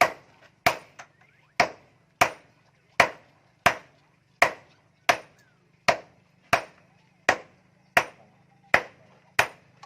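A hammer striking metal on an anvil in steady, regular blows, about three every two seconds, each with a short ringing tail, as an axe head is forged. A faint steady hum runs underneath.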